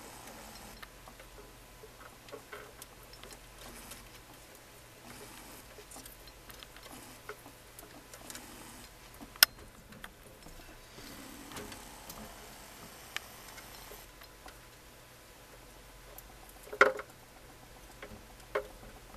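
Hermit crabs' shells and legs clicking and tapping on a plastic tank and against each other: scattered small clicks, one sharp click about nine seconds in, and two louder knocks near the end, over a faint steady low hum.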